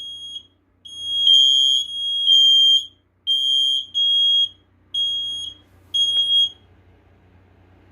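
Interconnected First Alert smoke alarms sounding on test: a loud, high-pitched piezo beep repeating in short bursts about once a second, stopping about six and a half seconds in.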